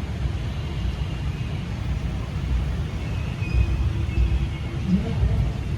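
Outdoor background noise: a low, uneven rumble with faint thin tones above it, like distant traffic or wind on the microphone.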